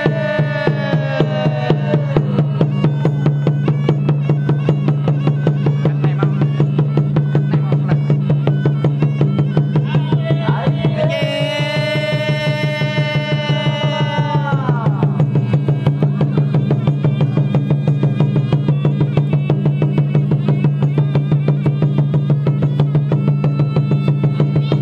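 Khmer pinpeat ensemble playing dance accompaniment: a fast, even drum and percussion pulse over a steady low drone. A long held melodic note fades out near the start, and another sounds from about eleven seconds in for some four seconds.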